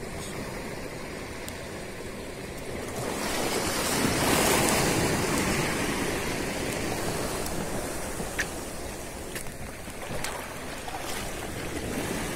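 Sea waves washing on the shore. One surge swells up about three seconds in and dies away by about seven, with a few faint light clicks near the end.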